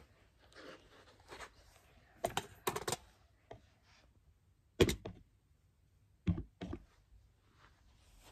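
A few sharp knocks and clicks against a quiet room: a quick cluster about two to three seconds in, one louder knock near five seconds and two more about a second and a half later.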